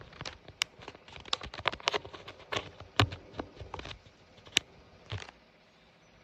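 A rapid, irregular series of sharp clicks and taps, some louder than others, that stops about five seconds in, leaving a faint steady hiss.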